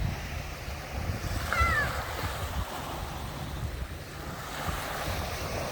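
Sea waves washing onto the shore in a steady hiss, with wind buffeting the microphone in low rumbles. A brief high chirp sounds about a second and a half in.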